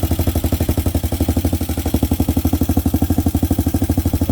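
Hawk 250 dirt bike's single-cylinder four-stroke engine idling steadily, an even putter of about a dozen beats a second, with the choke just turned off. The owner says the engine needs a carburettor adjustment.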